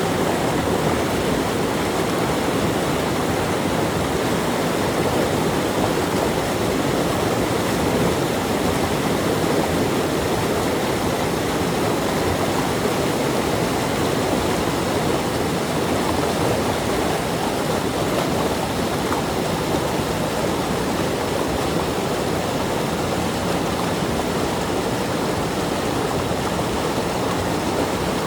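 A stream rushing and splashing over rocks in a steady, even wash of water noise.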